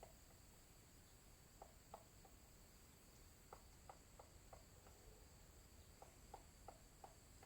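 Faint knocking from an unidentified source, in three short series of three to five sharp knocks, about three a second, over a steady high-pitched drone of insects.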